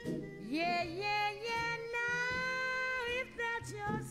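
Slow jazz music with a woman singing: her voice slides up into the melody about half a second in and holds one long steady note before breaking off just after three seconds, over a low accompaniment.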